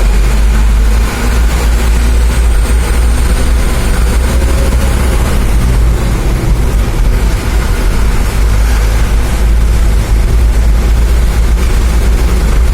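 Steady, loud low rumble of heavy engines in and around a large car ferry.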